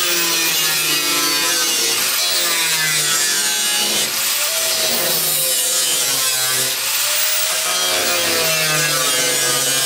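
Cut-off wheel cutting through the car's sheet-steel floor pan: a steady, loud rasping hiss, with the tool's motor note wandering up and down as it cuts.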